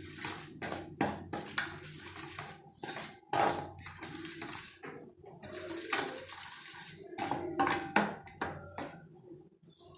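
Spoon stirring thick ground-rice batter in a steel bowl, clinking and scraping against the bowl's sides in irregular strokes that thin out near the end.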